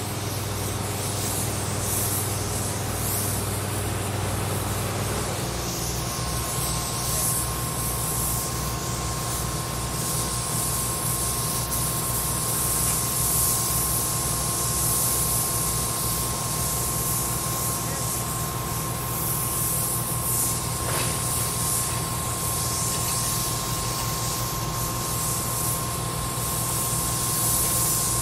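Demolition-site ambience: heavy machinery engines running steadily, their low note shifting about five seconds in. A thin steady whine joins soon after, over a hiss that swells and fades.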